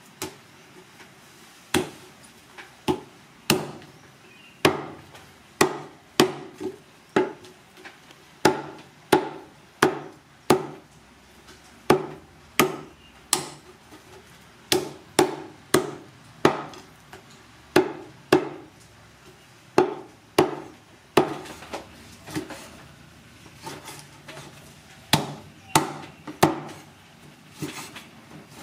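Heavy knife chopping wild pork into chunks on a thick wooden chopping block: sharp thuds of the blade cutting through the meat into the wood, about one a second in an uneven rhythm.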